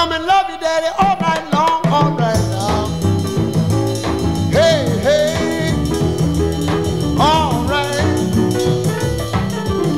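Background music: an upbeat song with drum kit and bass under a gliding melody line.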